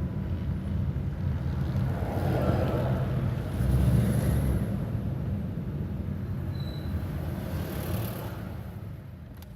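Cabin sound of a car driving with a window half open: a steady low road and engine rumble, fading out over the last couple of seconds.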